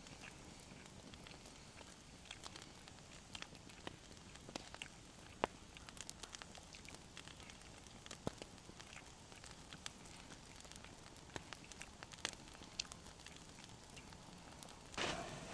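Wood fire crackling softly, with irregular sharp pops over a faint hiss. A louder rustling scuff comes in near the end.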